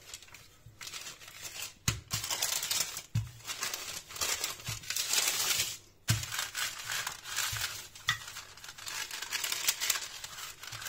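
Baking paper crinkling and rustling in long rolls as a wooden rolling pin is pushed back and forth over dough between two sheets, with a few dull knocks of the pin.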